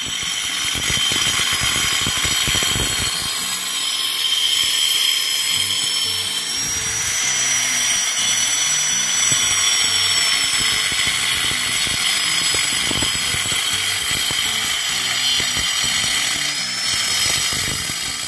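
Angle grinder cutting into a concrete wall: a loud, steady grinding hiss with a high motor whine that rises and falls a little as the disc bites.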